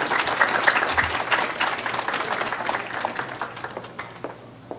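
Audience applauding, thinning out and dying away about four seconds in.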